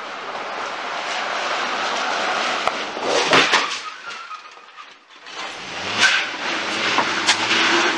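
Car crash: a vehicle's rising rumble, then a loud crunching collision with parked cars about three seconds in. After a short lull an engine runs again, with a few more sharp knocks.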